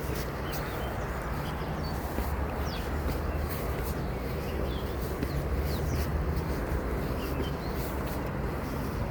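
Steady outdoor noise: a low rumble with a hiss over it, and a few short, faint bird chirps.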